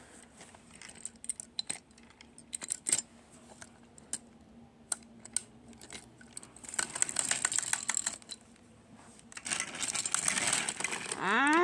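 Battery-powered plastic toy train running on rack-toothed track, its gear clicking rapidly against the track teeth in two stretches, with scattered clicks of plastic pieces being handled before that. A short rising-then-falling vocal sound comes right at the end.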